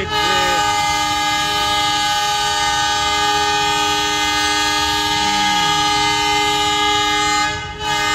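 Pakistan Railways GMCU-15 diesel locomotive's horn sounding one long continuous blast of several tones at once, breaking off briefly near the end and then sounding again. It is a warning to road traffic that keeps crossing in front of the train at a level crossing.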